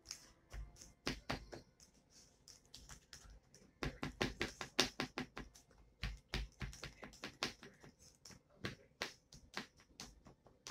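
Plastic spoon scraping and tapping inside a paper cup of ice cream, with mouth sounds of eating: a quick, irregular run of small clicks and taps that grows busier about four seconds in.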